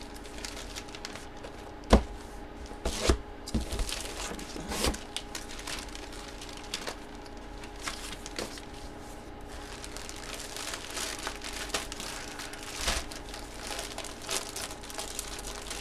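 Plastic wrapping and card sleeves crinkling and rustling as trading cards are unpacked and handled, with scattered sharp clicks and knocks; the loudest comes about two seconds in.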